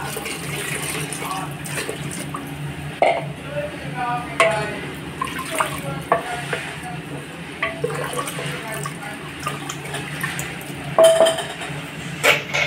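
Water sloshing as a ladle stirs dal in a pressure cooker, with several sharp knocks of the ladle against the pot.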